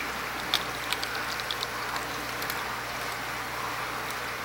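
Knife blade scraping and picking at silicone sealant along the edge of a polycarbonate tank window, with a handful of small sharp clicks in the first half, over a steady background hiss.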